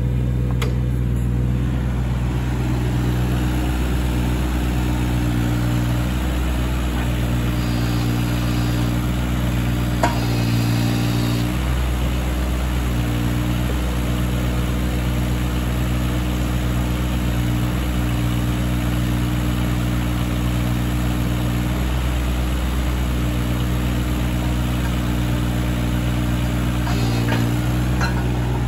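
Takeuchi TB216 mini excavator's diesel engine running steadily at a constant speed while the upper structure swings round and back. There is a single click about ten seconds in, and the engine note shifts briefly there and again near the end.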